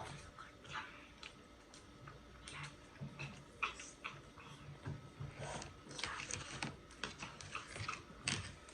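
Close-up eating sounds: a mouth chewing food, with irregular clicks and smacks that come thicker in the second half.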